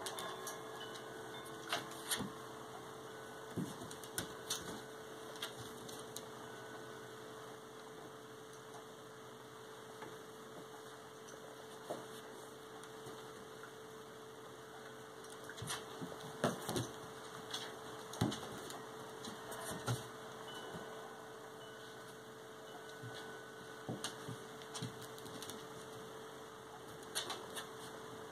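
Irregular clicks and scuffling taps of a husky puppy's claws and paws on a tile floor as it wrestles with a cat, heard in scattered clusters over a steady electrical hum.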